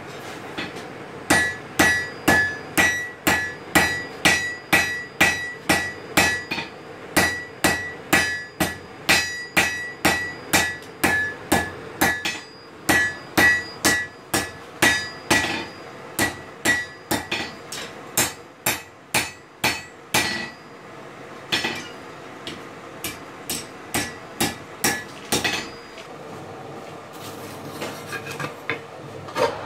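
Hand hammer forging a red-hot steel kitchen-knife blade on an anvil: steady blows about two and a half a second, each followed by a high ringing from the anvil. The blows come in three runs with brief breaks. After that, lighter, sparser strikes go on for a few seconds before stopping.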